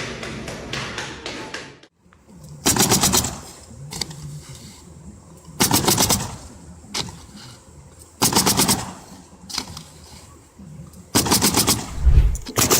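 Rapid mechanical hammering in short bursts, each under a second long and a few seconds apart, about five in all. Before them, a run of fast tapping cuts off abruptly about two seconds in.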